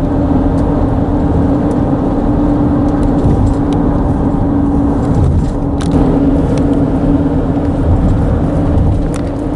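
Car tyres running over a concrete bridge deck: a steady, loud road rumble with a constant humming drone, and a couple of brief clicks about six seconds in and near the end.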